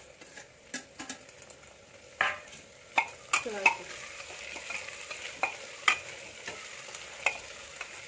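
A steel ladle stirs chopped tomatoes into onions frying in oil in an aluminium pressure cooker. The ladle knocks and scrapes sharply against the pot, irregularly, over a steady sizzle of frying that grows louder from about two seconds in.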